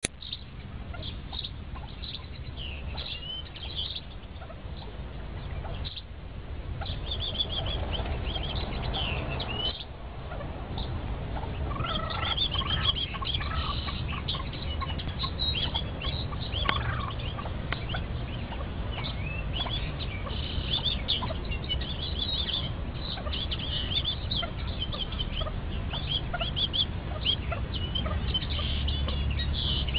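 Partridge chicks peeping: many short, high cheeps, sparse at first and more frequent through the second half, over a low steady rumble.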